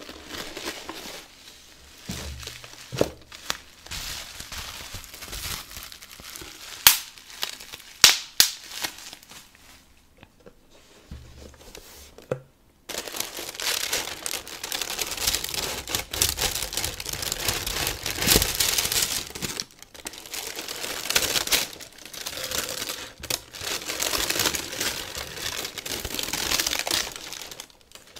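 Thin white tissue paper crinkling and rustling close to a microphone. A few sharp snaps come in the first half, and about halfway through the crinkling turns dense and continuous.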